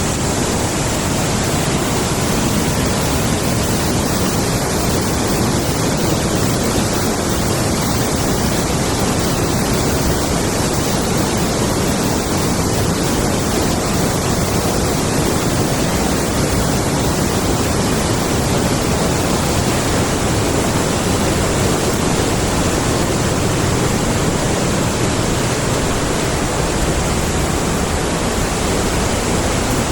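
Large forest stream rushing, a loud, steady roar of water.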